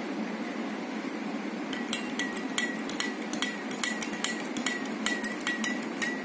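A spoon stirring turmeric water mixed with dishwashing liquid in a drinking glass. It clinks against the glass about three to four times a second, each clink ringing briefly, starting about two seconds in, over a steady low hum.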